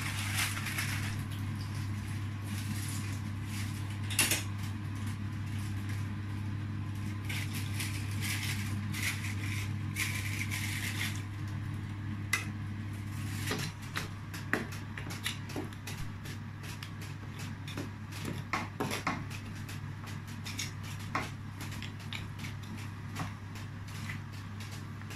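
Metal spoon scraping and clinking against a cooking pot while stirring cooked rice, with many short knocks and clicks in the second half, over a steady low hum. Stretches of hiss come in the first half.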